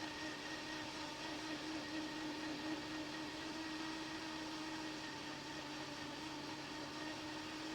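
Hot air rework station blower running steadily, heating the board to melt the solder: an even airy hiss with a constant low hum.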